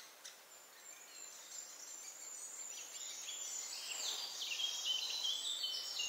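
Faint woodland birdsong: several small birds chirping and trilling, growing busier and a little louder toward the end, over a steady high hiss.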